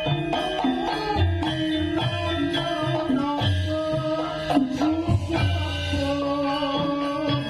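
Javanese gamelan music with deep kendang drum strokes under sustained melodic lines, some of them bending in pitch like a singing voice.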